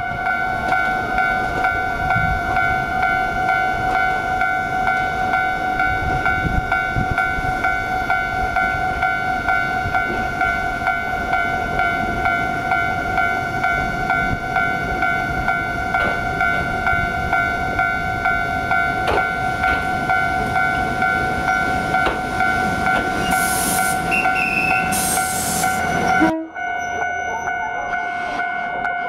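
Ichibata Electric Railway Dehani 50 electric railcar standing at a platform: a steady high whine over a low rumble. Near the end there are two short hisses.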